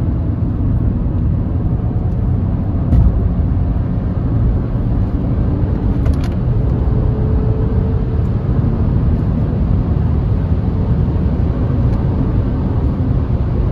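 Audi A4 B5's 2.8-litre V6 on its stock exhaust, running steadily with a low, even note.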